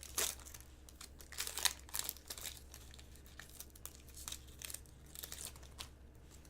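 Trading-card pack wrapper crinkling and cards being handled: an irregular run of short crackles and rustles, a few of them louder.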